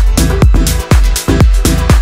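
Electronic dance music with a steady kick drum beat, a little over two beats a second.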